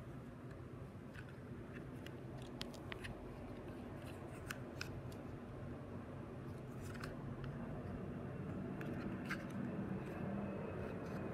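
Scattered small sharp clicks at irregular times over a low steady hum.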